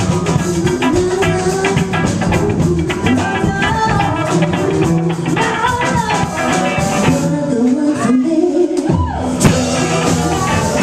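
Live rock band playing: drums and cymbals on a Premier drum kit with amplified electric guitars. Near the end the low end drops out for about a second before the full band comes back in.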